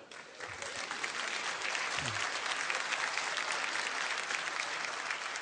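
Audience applauding, a crowd of hands clapping that swells within the first half-second and then holds steady.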